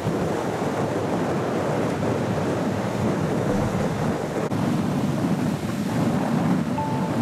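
Ocean surf washing onto a sandy beach, with wind blowing on the microphone: an even, steady rushing noise.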